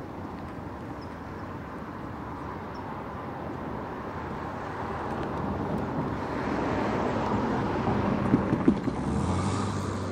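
Diesel locomotives of an approaching Union Pacific freight train, their engine rumble growing steadily louder, with a low steady hum coming up in the second half and a few sharp knocks a little past the middle.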